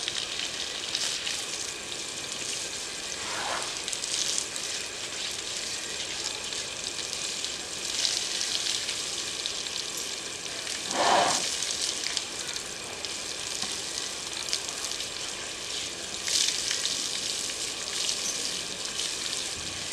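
Jet of water spraying onto an elephant's hide during its bath: a steady hiss, with a few brief louder swells of splashing.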